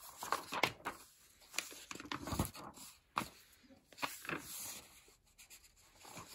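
Pages of a paper instruction manual being turned and handled, with short, intermittent rustles and flaps of paper.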